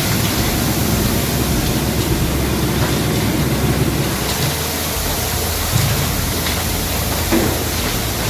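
Four-shaft industrial shredder running under load, grinding material with a steady, dense rumble and scattered knocks.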